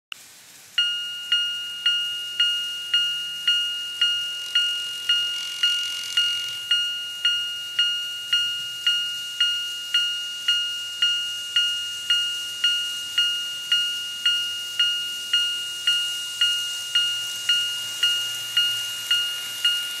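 TOMIX TCS automatic level crossing set's electronic warning bell: a ringing two-tone ding repeated evenly about twice a second, starting just under a second in. It is the crossing signal warning of an approaching train.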